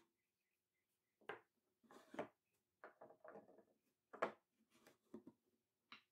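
Faint wooden knocks and sliding scrapes as a small hidden maple drawer is pushed back into a walnut and curly maple jewelry box and its round magnetic key is set against the drawer front, with a sharper knock a little past four seconds in.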